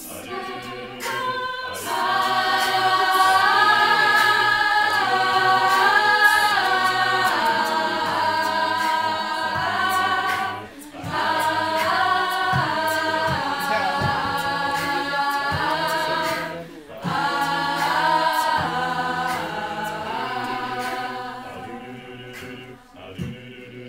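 Mixed-voice a cappella group singing sustained chords in harmony, with no instruments. The singing breaks briefly about 11 and 17 seconds in and fades away near the end.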